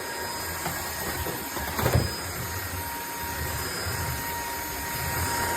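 Hoover ONEPWR Evolve Pet Elite cordless stick vacuum running steadily, its motor whirring as it sucks up a mess, with a single knock about two seconds in.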